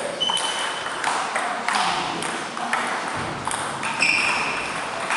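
Table tennis balls being hit by bats and bouncing on the tables in quick, irregular clicks, some with a short ringing ping, with rallies on more than one table overlapping.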